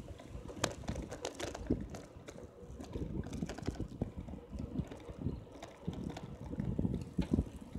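Wind buffeting the microphone of a bicycle-mounted camera while riding, an uneven low rumble with a few sharp knocks.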